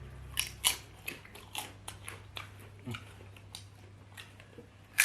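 Close-up eating sounds of chewing potato: a run of short wet clicks and mouth smacks, about one or two a second, with one sharp louder click near the end.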